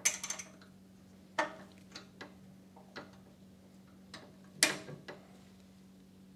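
Sharp metal clicks of a small flat wrench turning two jammed nuts on a Predator 212 engine's carburetor mounting stud as the stud is unscrewed a couple of turns. There are about eight separate clicks, the loudest about four and a half seconds in, over a faint steady hum.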